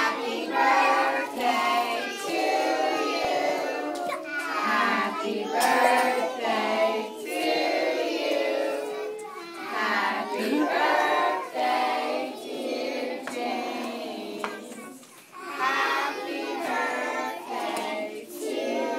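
Young children singing together as a group.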